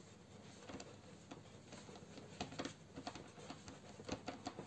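Fingertip rubbing black oil pastel into paper to blend it: faint, irregular scratchy rubbing with scattered small ticks.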